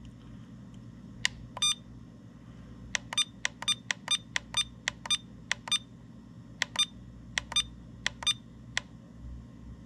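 Ultra Power UP-S6AC battery charger beeping at each button press while its charge-current setting is stepped through: about twenty short high beeps, a few spaced apart and others in quick runs of about four a second.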